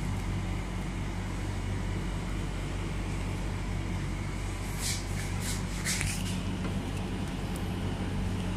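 A steady low hum with a few short, light clicks about five to six seconds in.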